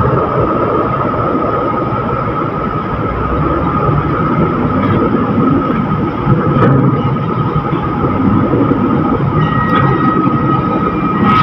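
Heavy diesel cargo-handling machinery at a container terminal running steadily, a low rumble with a constant high-pitched whine over it.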